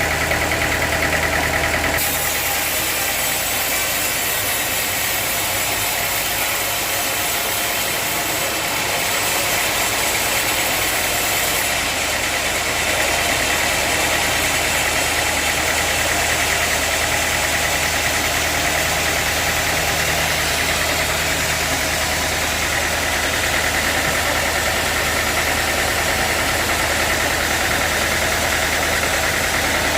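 Sawmill machinery running steadily, a continuous engine-like drone with a thin whine, while a brighter hiss sets in about two seconds in.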